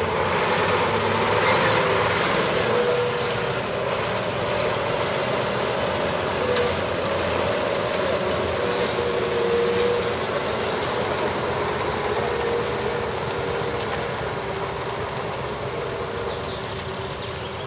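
A large engine running steadily, a continuous drone with a wavering hum.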